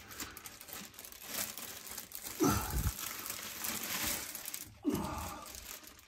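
Plastic wrapping on a pack of toilet rolls crinkling as a hand grips and shifts it.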